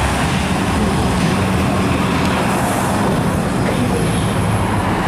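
Cars driving slowly past: a steady engine rumble mixed with road noise.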